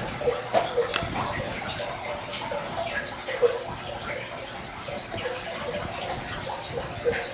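Water running from a tank: a steady trickling and splashing with irregular small bubbling blips, and a few faint clicks over it.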